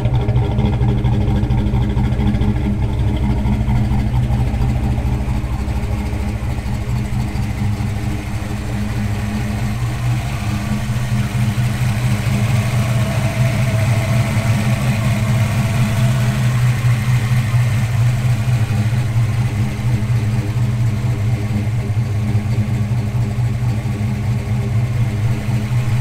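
A 1988 Ford Mustang Fox body's 5.0-litre V8 idling steadily, running again now that its no-start ignition fault is fixed.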